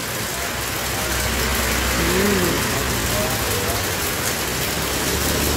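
Heavy rain pouring steadily, with a low rumble underneath that builds about a second in, from the strong wind or a vehicle engine.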